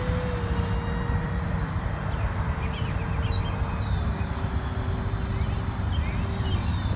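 64mm electric ducted fan of an E-flite F-15 Eagle RC jet whining steadily, its pitch slowly dropping, over a heavy low rumble.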